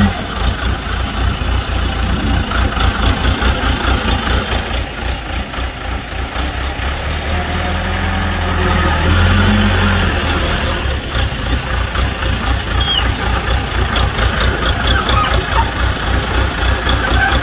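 Engine of a Hoàng Giai HJ18B wheel loader running under work with a fast, even low throb. The loader digs its bucket into sand, lifts the load and tips it into a dump truck, and the engine swells briefly partway through.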